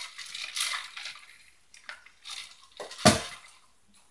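A run of short clattering and scraping noises, the loudest a sharp knock about three seconds in.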